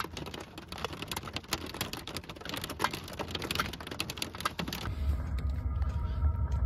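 Hailstones striking the roof of a Chevy Astro van as a dense, rapid clatter of sharp clicks. About five seconds in it gives way to a steady low hum with only a few scattered taps.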